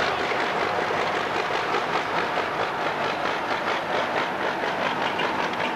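Crawler tractor running, its engine and steel tracks making a steady, rhythmic clatter.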